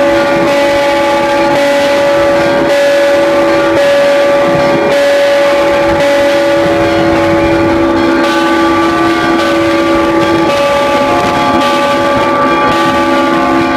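Bells of the Assumption Cathedral's belfry being rung by hand, several bells sounding together: a dense, sustained hum of overlapping bell tones, with fresh strikes about once a second.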